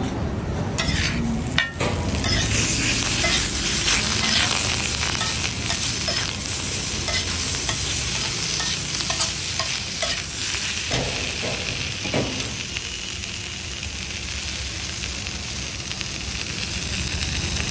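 Food sizzling on a tawa griddle while a spatula stirs and scrapes it, knocking against the pan in frequent short strokes. A sharp knock comes just under two seconds in, and the knocking eases off for the last few seconds while the sizzle goes on.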